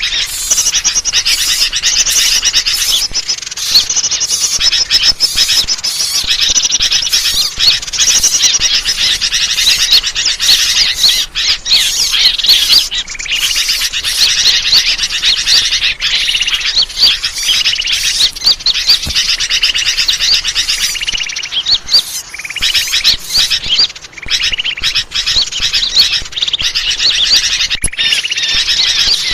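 Bird-lure recording: a dense, continuous chorus of high chirping and twittering birds, many calls overlapping, played to attract wild birds.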